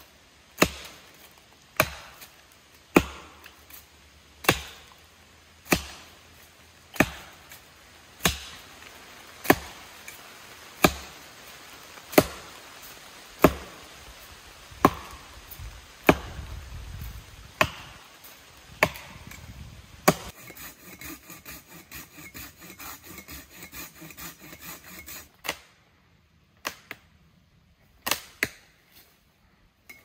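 Wood being chopped: sharp, evenly spaced blows about one every 1.3 seconds. About twenty seconds in they give way to a quicker run of lighter ticks for several seconds, followed by a few scattered knocks.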